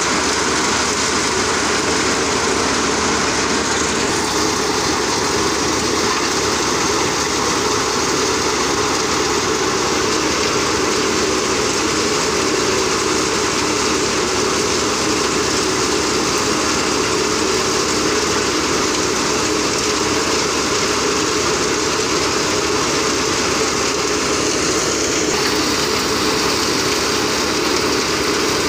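Tractor-powered thresher threshing mustard, a loud, steady mechanical noise from the engine and the machine running under load, with no break.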